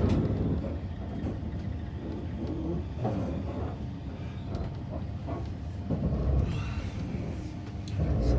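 Low, steady rumble of a CR200J push-pull train carriage running on the rails, heard from inside the car, with a few faint knocks; it swells briefly near the end.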